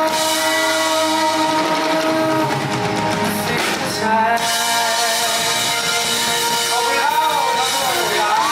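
Live band music led by guitar, with held chords and notes, heard through a concert hall's sound system.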